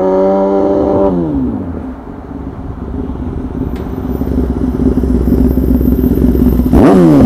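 High-performance vehicle engine being revved: the note is held high, then falls away about a second in, settles into a steady run that slowly grows louder, and near the end a sharp, louder blip of the throttle drops back down.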